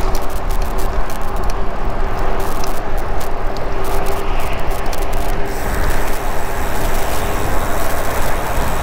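Wind buffeting the microphone of a bike-mounted camera, with tyre noise from a road bike riding into a stiff headwind on a concrete road: a loud, steady rush with a low rumble. Small clicks and a faint steady hum come through in the first half and stop about five seconds in.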